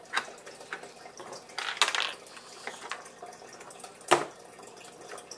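Hard plastic pieces of a Goliath Dino Meal dinosaur toy clicking and knocking together as a child handles the dinosaur and the leaf lid of its nest base, with a cluster of knocks about two seconds in and one louder sharp click about four seconds in.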